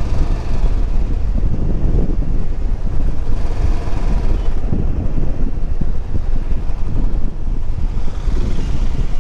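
Motorcycle riding along at road speed: the engine running under heavy wind buffeting on the microphone.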